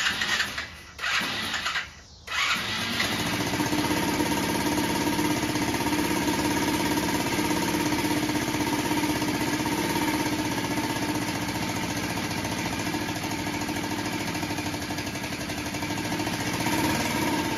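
Small Chinese youth ATV engine starting: two short bursts in the first two seconds, then it catches and runs at a steady idle. This is its first run after sitting for about six years.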